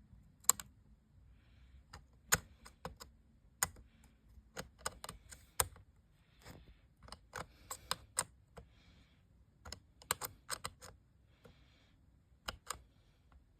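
Irregular clicks and faint scraping as a fire alarm strobe's terminal screw is turned with an Apple 5W charger standing in for a flathead screwdriver.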